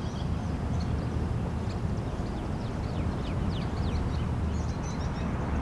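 Birds chirping in short, quick, downward-sweeping calls over a steady low rumble.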